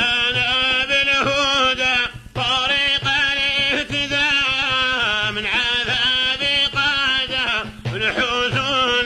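A man's voice singing an old Arabic qasida in a drawn-out, heavily ornamented chant, with short breath pauses about two seconds in and near the end.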